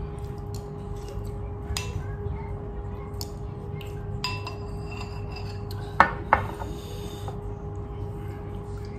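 Cutlery clinking and scraping against a bowl during a meal, with scattered light clicks and two sharp clinks about six seconds in, over a steady low electrical hum.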